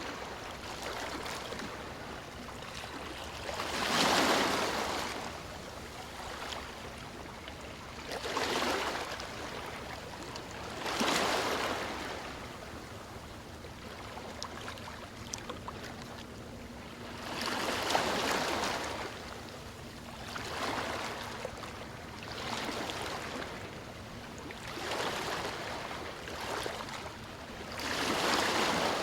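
River water flowing and murmuring, with a steady rushing that swells louder for a second or two every few seconds, at uneven intervals.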